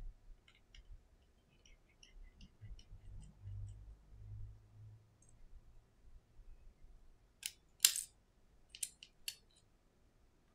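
Small metallic ticks and clicks of precision repair tools on an iPhone 11: faint ticking of a small screwdriver at the screws, then a few sharp, louder clicks in the second half as tiny metal parts are handled and set down on the silicone mat.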